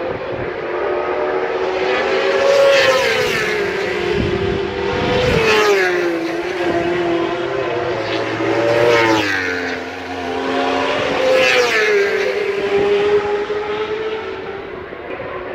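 Racing superbike engines at full throttle, the note climbing through the revs and dropping back at each gear change, swelling loud about four times as the bikes come by and fading near the end.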